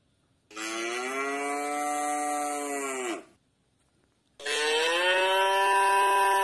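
White zebu cow mooing twice: two long calls of about three seconds each, the second starting about four seconds in and louder. Each call drops in pitch as it ends.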